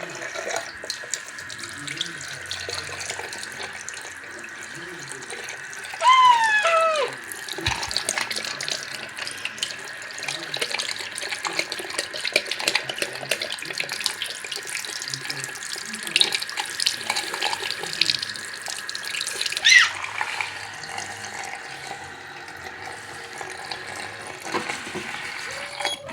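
Water running from a tap into a sink, a steady rush. About six seconds in there is a loud high squeal that falls in pitch, and a short squeak comes near twenty seconds.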